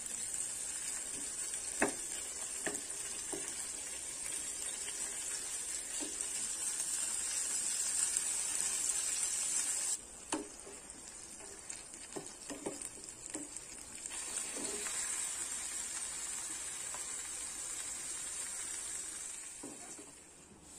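Oil sizzling in a nonstick frying pan as a frozen block of red chili-coated food fries, with the spatula knocking and scraping against the pan from time to time as it is broken up and stirred. The sizzle drops off suddenly about halfway through, then builds back, and fades near the end.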